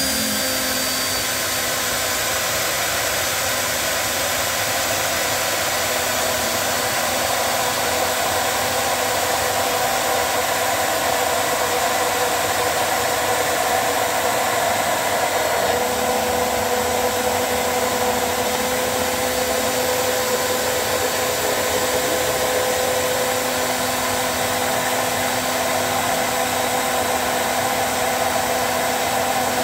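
Immersion blender running continuously in a stainless steel beaker, emulsifying cream and oil into an eggless mayonnaise. Its steady whine changes tone slightly a little past halfway.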